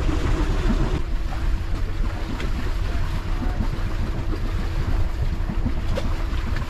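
A sailboat under engine power. Wind buffets the microphone and water rushes along the hull over a steady low engine hum.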